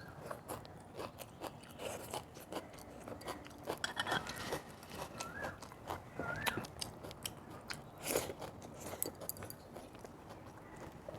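A person chewing and biting food close to the microphone, with irregular crunches and wet mouth clicks, and a few short wavering squeaky tones a little before the middle.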